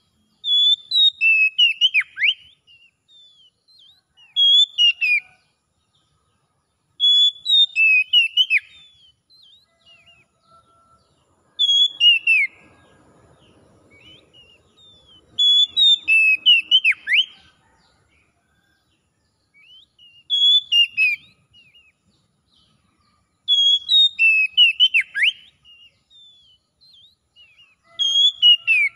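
Oriental magpie-robin singing: short phrases of clear whistled notes, each with a steep downward sweep, repeated about every four seconds.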